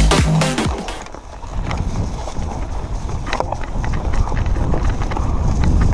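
Background dance music cuts out in the first second, then wind buffets the camera microphone over the rumble and rattle of a mountain bike rolling over a rough dirt and leaf-covered trail, with a few sharp knocks from the bike jolting.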